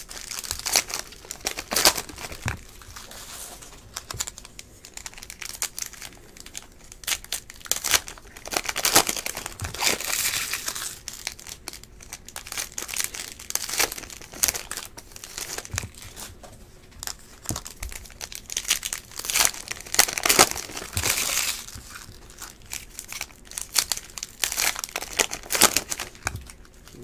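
Panini Prizm baseball card packs and cards being handled: foil wrappers crinkling and tearing, and stiff glossy cards flipped and slid against each other, in irregular rustles and small snaps, louder a third of the way in and again about two thirds of the way in.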